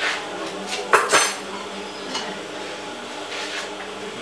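A few sharp clinks and clatters of small hard objects being handled, the loudest at the start and about a second in, over a faint steady hum.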